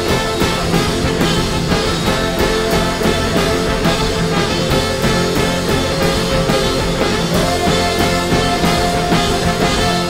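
Live rock band playing an instrumental passage with no vocals: drum kit, electric guitars, bass, keyboards and trumpet over a steady beat. A held high note comes in about seven seconds in and carries on through the rest.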